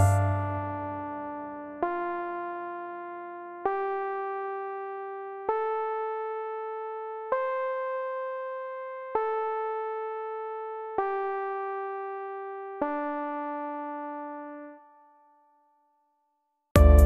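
Background music: slow single keyboard notes, electric-piano-like, struck about every two seconds, climbing in pitch and then falling back, each left to ring out. The music fades to silence about fifteen seconds in, and louder music comes back just before the end.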